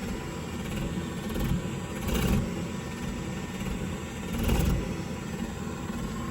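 Gas boiler burner just lit, running with a rough, fluttering rumble that swells louder twice. The poor combustion is a sign of the blocked exhaust found on this no-heat call.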